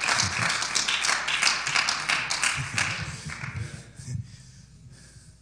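Congregation applauding, with some voices mixed in; the clapping dies away about four seconds in.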